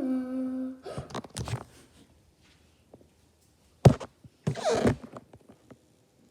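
The drawn-out end of a child's "no", then rustling and handling noises with a single sharp knock a little before the four-second mark and a longer rustle just after it.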